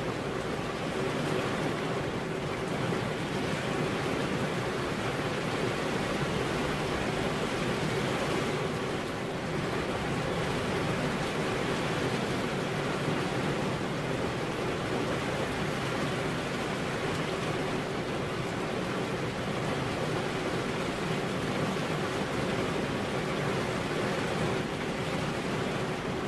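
Rain falling steadily, an even, unbroken hiss.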